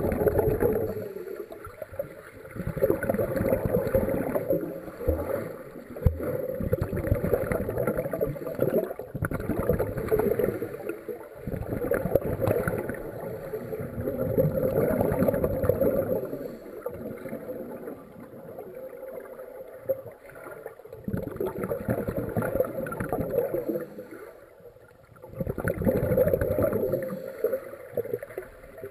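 Muffled rushing and bubbling of water heard from below the surface, stirred up by swimmers jumping in and kicking past. It comes in swells a few seconds long, with quieter stretches between them.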